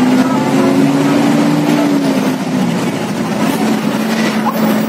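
Heavy traffic on a multi-lane expressway close by: a steady rush of tyres and engines, with one vehicle's engine hum that sinks in pitch and fades about two and a half seconds in.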